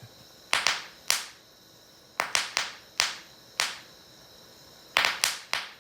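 Soap bubbles filled with electrolysis gas popping as they reach a butane torch flame: about a dozen sharp bangs at irregular intervals, some in quick runs of two or three, rapid fire and pretty loud.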